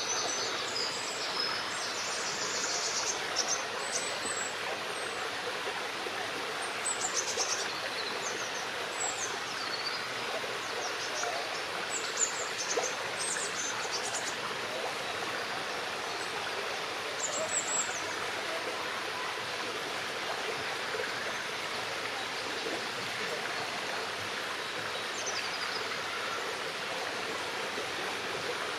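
Brook water running in a steady rush, with short high-pitched songbird chirps and trills every few seconds.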